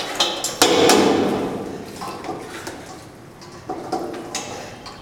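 Metal pot knocking and scraping against a stainless steel bowl as food is tipped out of it, with a loud clank about half a second in that rings on, then lighter knocks further on.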